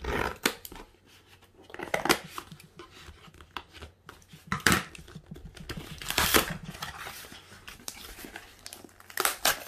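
Scissors cutting through a cardboard-stiffened paper mailer in a series of uneven snips and crunches. Near the end the paper packaging crinkles as it is pulled apart by hand.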